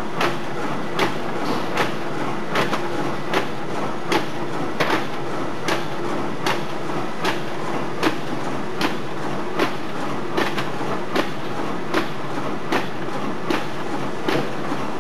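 WS-9905 food container forming machine running: a steady mechanical din with a sharp clack repeating evenly about every 0.8 seconds.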